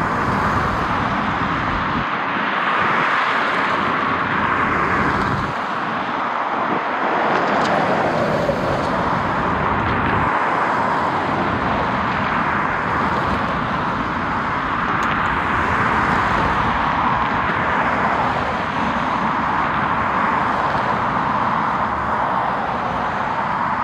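Jet aircraft engine noise: a loud, steady rush that swells and eases in slow waves.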